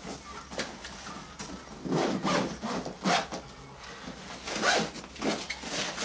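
Rustling and scraping of books and papers being gathered off a wooden coffee table and packed into a bag, in a few short, irregular bursts.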